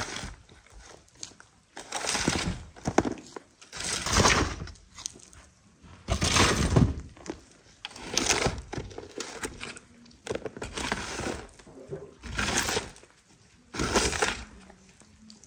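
A shovel scooping and scraping soil off sheet-metal covers over an underground tandoor pit. There is one gritty stroke about every two seconds.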